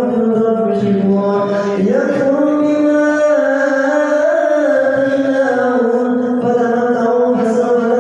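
A solo man's voice in melodic, chant-like recitation, holding long ornamented notes; the pitch steps up about two seconds in and settles lower again near the end.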